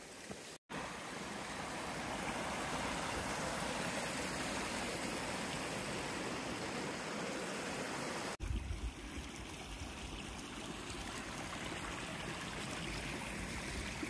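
Hill stream running over rocks, a steady rush of water, with a brief low rumble a little past the middle.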